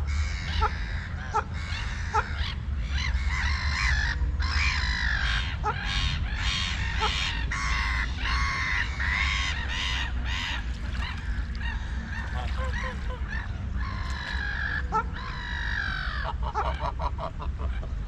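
A flock of geese honking, many calls overlapping in quick succession, over a steady low rumble.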